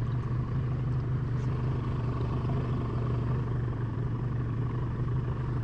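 A small boat's motor running steadily at trolling speed, a low, even drone.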